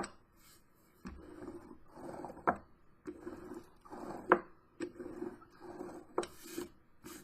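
Hand roller rolled back and forth over a freshly glued paper sheet on a chipboard cover, pressing it flat: a run of rolling strokes about a second long each, with a sharp click at several of the turns.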